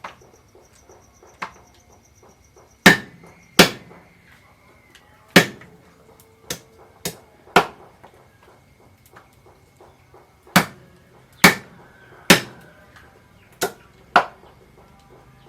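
Knife or cleaver chopping on a cutting board: about a dozen sharp single chops at an uneven pace, some a little under a second apart, others with longer pauses.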